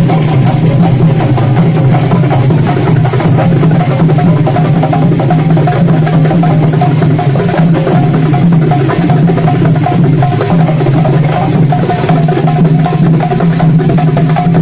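Loud, steady percussive music: drums with rapid wooden knocking throughout.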